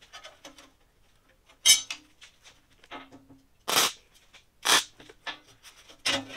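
Small pieces of steel angle clanking as they are handled and set down: a series of sharp metal knocks and clicks, four of them loud, some leaving a short ring.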